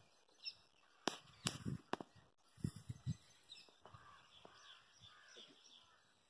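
Faint crows cawing in the background, with three sharp clicks between one and two seconds in and a few low thuds shortly after.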